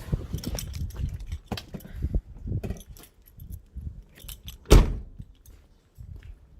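Jangling, clinking handling noises made of many short clicks and knocks, with one loud thump just before five seconds in.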